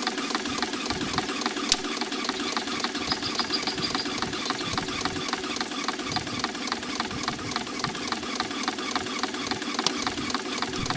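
Small Lynx steam engine running steadily on steam from a wood-fired monotube boiler, driving a generator, with a rapid, even beat.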